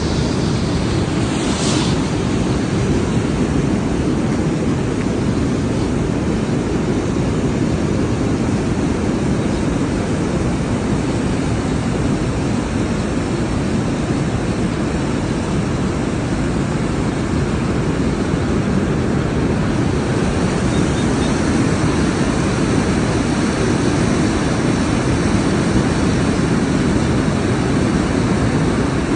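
River water rushing steadily in a constant roar of flowing noise.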